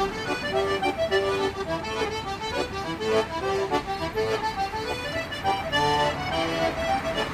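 Manfrini button accordion playing a fast Irish reel: quick, unbroken runs of short notes.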